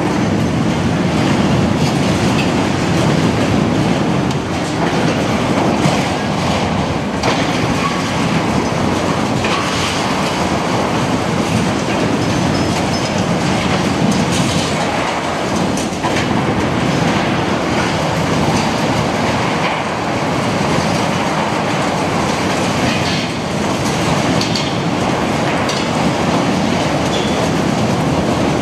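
Liebherr 954 hydraulic excavator running under load while its demolition grab rips apart a steel roof structure: continuous clanking, scraping and screeching of torn metal, with repeated crashes of falling debris.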